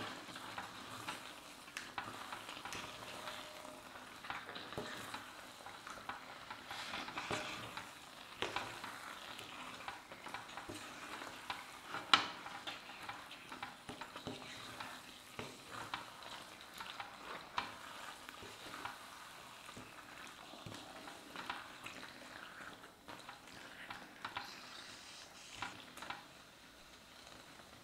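Chicken in thick masala sizzling in a stainless steel pan while a wooden spatula stirs and scrapes through it, with frequent light knocks of the spatula against the pan and one sharper knock about twelve seconds in.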